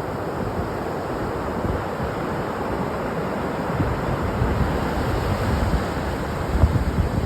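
Ocean surf washing onto a beach, with wind buffeting the microphone in low rumbling gusts.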